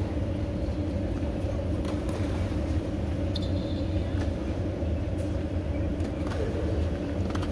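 Steady low rumble of a moving road vehicle, with a few faint light clicks.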